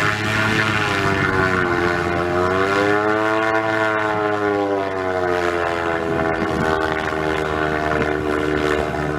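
Propeller aircraft engines running with a steady droning hum of several tones, whose pitch rises to a peak about midway and then falls back and levels out.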